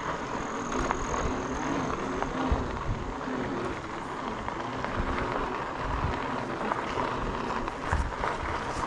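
E-bike rolling along a dirt trail: steady tyre and drivetrain noise with a constant mid-pitched hum, and wind rumbling on the microphone.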